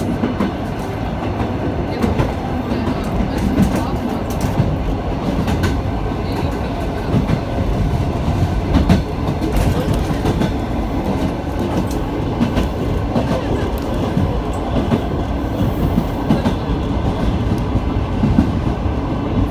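Inside a carriage of an ET2 electric multiple unit running at speed: a steady loud rumble of wheels on the track, with scattered clicks and knocks as the wheels run over the rails.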